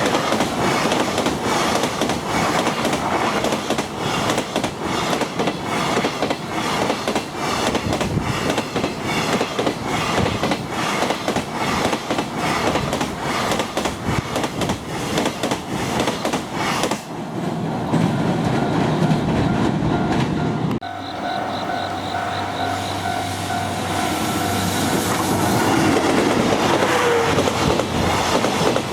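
Wagons of an EF210-hauled freight train passing a level crossing, wheels clicking steadily over the rail joints; the noise thins as the end of the train goes by. After a sudden cut about two-thirds in, a crossing warning bell rings and an approaching EF65-hauled train grows louder.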